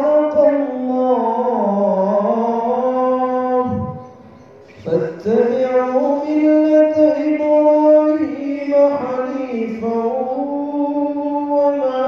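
A man reciting the Quran in Arabic in a slow melodic chant, drawing out long phrases, with a pause for breath about four seconds in.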